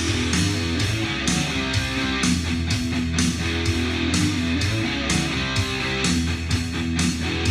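Rock music with strummed electric guitars over a bass line and a steady drum beat of about two beats a second.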